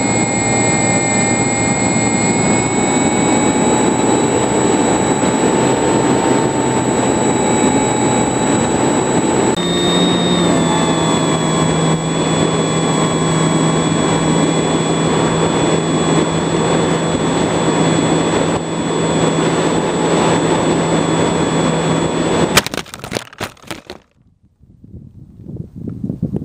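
Onboard sound of an RC model airplane in flight: a steady motor whine over a loud rush of wind, the pitch of the whine shifting about ten seconds in as the throttle changes. About 22 seconds in comes a sharp crash as the plane hits the ground on a failed crosswind landing; the motor stops and only a few scattered knocks and rustles follow.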